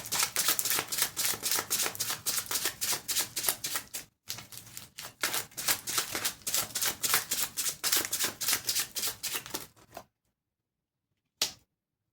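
Tarot deck being shuffled by hand: a fast, dense run of card flicks and clicks that breaks off briefly about four seconds in, resumes, and stops about ten seconds in, with one more card snap near the end.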